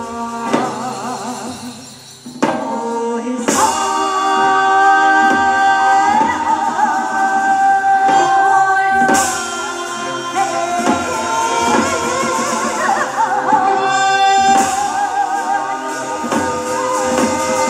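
Music with singing: long held, wavering sung notes over instrumental accompaniment, with a short drop in level about two seconds in before it comes back loud.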